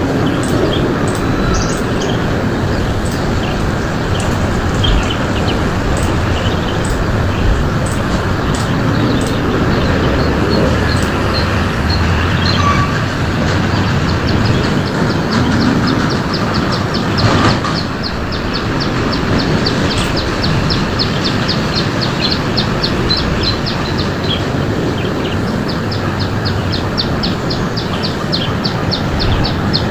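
Birds calling over a loud, steady rushing noise: scattered short high chirps, then from about halfway in a rapid run of high chip notes, about four a second, with a short pause before it resumes.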